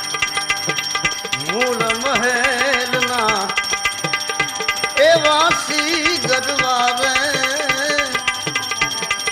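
Live Gujarati bhajan music: a tabla beats a steady rhythm under a wavering melodic line that comes in two phrases.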